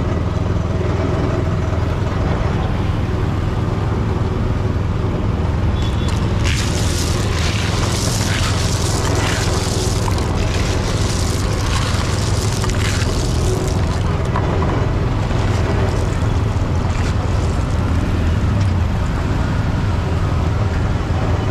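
Street traffic noise: a steady low engine rumble, with louder hissing noise and some voices for several seconds in the middle.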